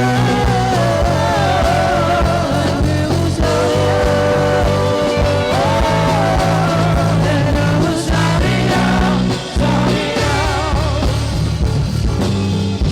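Church worship music: a singing voice with a wavering melody over a band with a steady bass line.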